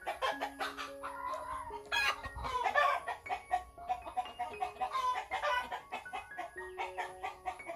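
Chickens clucking repeatedly, over background music of long held notes.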